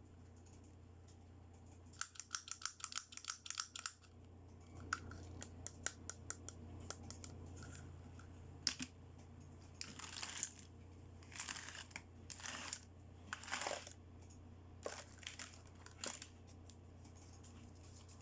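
Toy packaging being handled and opened: a quick run of sharp clicks about two seconds in, then scattered clicks and several crinkling, tearing strokes.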